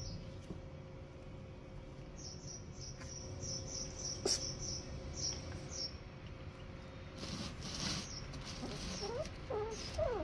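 Two puppies play-fighting, with a scuffle of paws and bodies. High squeaky whines and whimpers come in during the last couple of seconds. Short high chirps sound in the background through the middle.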